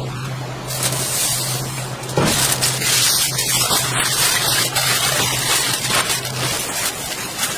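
Aluminium foil crinkling and crackling as gloved hands fold it around a smoked brisket, louder after about two seconds, with a low steady hum underneath.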